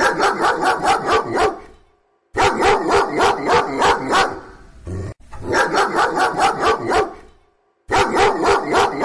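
A dog barking in quick, evenly spaced runs of about five barks a second. There are four runs, with short silent gaps between them.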